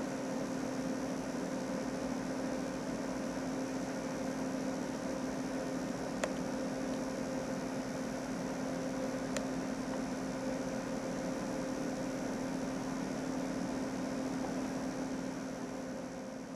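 A steady machine hum with a low, steady tone over a haze of hiss, with two faint clicks in the middle; it fades down near the end.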